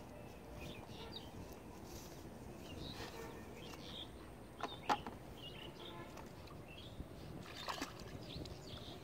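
Shallow muddy water sloshing and splashing as someone steps into it. Two sharp knocks a little before the middle, a plastic bucket being set down, with birds chirping in the background.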